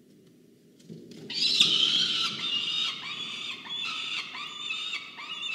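Juvenile peregrine falcon calling loudly, beginning about a second in: one long harsh scream, then a string of shorter, arched calls.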